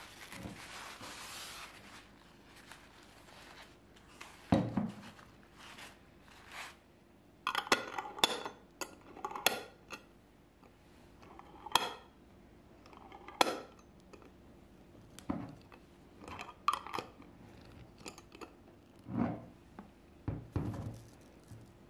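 A paper towel rustles against a glass jar of tangerine jam at the start. Then a metal twist-off lid is screwed onto the jar in a run of sharp clicks and clinks. The jar knocks dully on a wooden table as it is set down, twice near the end as it is turned upside down.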